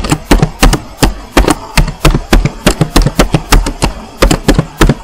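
Computer keyboard typing: a steady run of sharp keystrokes, about five a second, each with a low thud of the key bottoming out, stopping near the end.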